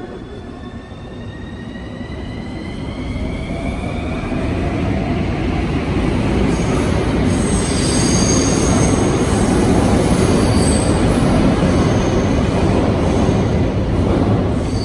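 Bucharest Metro train running past, with a rising whine over the first few seconds as it gets louder. Loud running noise follows, with short high-pitched wheel squeals coming and going from about halfway.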